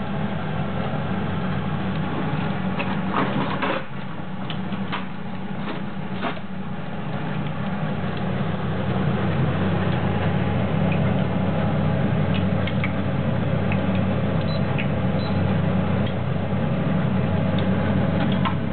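Vegetable fritter batter frying in a pot of hot oil, a steady sizzle over a low hum, with a few clicks of a spoon against the pot in the first seconds. The sizzling grows louder about halfway through.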